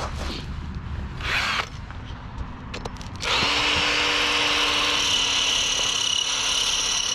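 Power drill boring into the ice of a frozen fountain basin. After a couple of brief noises and a few clicks, it starts about three seconds in and runs at a steady speed as the bit grinds through the ice.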